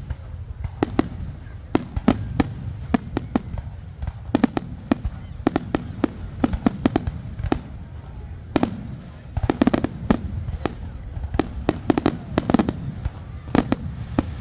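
Fireworks display: an irregular string of sharp bangs and cracks, some coming singly and some in rapid clusters, over a steady low rumble.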